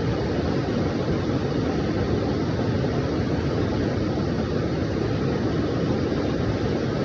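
Steady rushing noise of fast-flowing floodwater, deep and even with no breaks.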